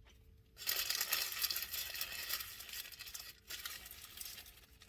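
Paper sandwich wrapper crinkling as it is handled. It starts suddenly about half a second in, stops briefly just past three seconds, then crinkles again more quietly.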